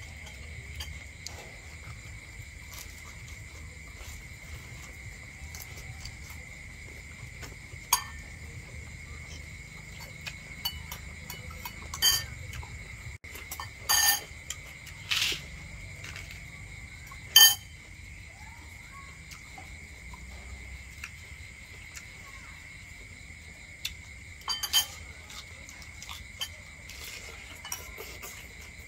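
A few sharp clinks of utensils against dishes, scattered with long gaps, over a steady high-pitched chorus of crickets.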